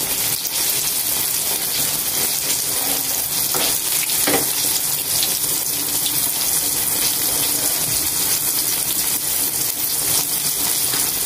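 Egg-coated eggplants frying in a wok of hot, foaming oil, with a steady, even sizzle.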